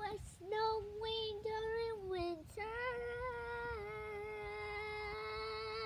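Husky howling: a run of short stepped 'woo' notes that slide down, then one long, held note lasting about three seconds.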